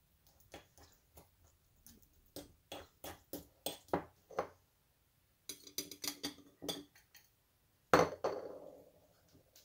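Small spoon stirring and scraping a stiff wax paste in a small bowl, with repeated light clinks and taps against the bowl. About eight seconds in comes one louder clink with a short ring.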